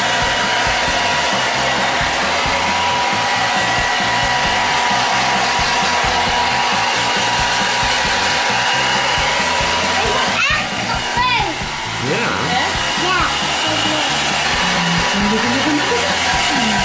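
Handheld hair dryer running steadily, blowing air with a constant motor whine, as it dries a wet puppy's coat. The sound dips briefly about ten seconds in.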